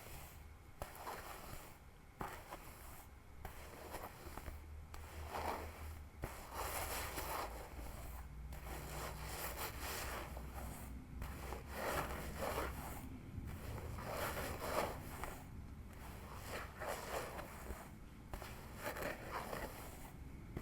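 Fingernails scratching a scalp and pulling through hair in repeated rasping strokes, with short pauses between them.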